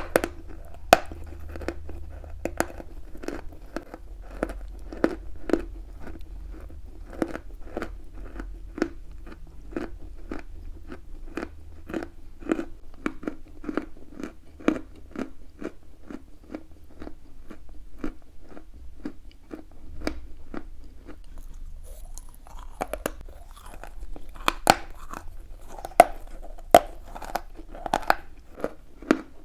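Chalk being chewed close to the microphone: steady, crunchy chews about every half second, turning into louder, sharper crunches in the last few seconds.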